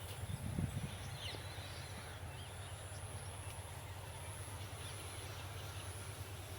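Quiet outdoor farm ambience: a steady low rumble, a brief low bump about half a second in, a few faint bird chirps and a thin, steady high-pitched whine.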